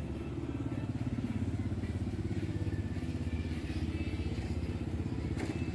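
A small motorbike engine running close by, with a fast, even putter.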